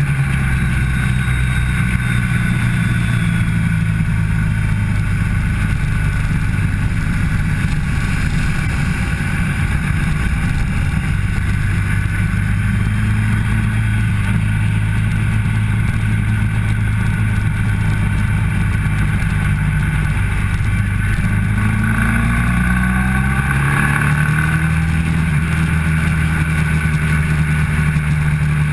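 Motorcycle engine running hard at track speed, its note held steady for most of the time, then rising, dipping at a gear change and climbing again about three-quarters of the way through, with wind noise rushing over the onboard camera.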